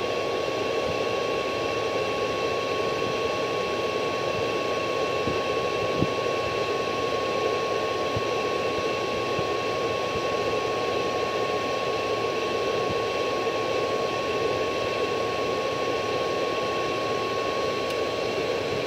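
Steady fan-like rushing from a CB linear amplifier setup and its power supply, running keyed on a steady carrier into the antenna, with a constant high-pitched whine over it. A single faint click comes about six seconds in.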